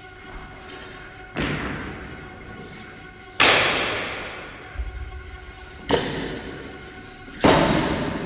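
Four heavy thuds on a rubber gym floor, roughly every two seconds, from an athlete doing burpees; each thud rings out in a large echoing hall, the second and last loudest. Faint background music underneath.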